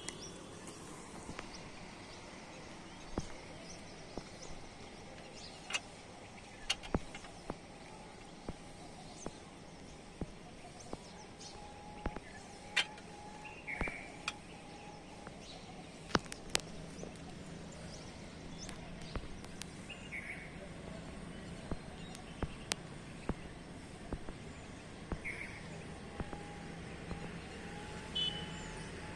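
Outdoor town ambience: a steady background hum with scattered sharp clicks and a few short high chirps.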